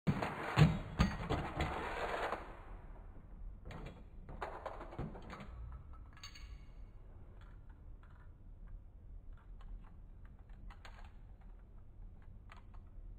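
A Beyblade spinning top whirring across a plastic stadium and clacking against it, with a few loud knocks in the first second or so; it dies away after about two and a half seconds. Then come scattered light plastic clicks as the tops are handled.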